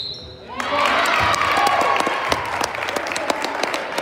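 Spectators and bench in a gym cheering and shouting, breaking out about half a second in, with a basketball bouncing and sharp ticks on the hardwood floor.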